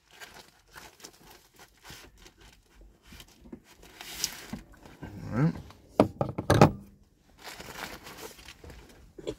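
Paper or foil food wrapper crinkling and tearing as a burrito is unwrapped, with handling clicks and rustles throughout and two louder knocks about six seconds in.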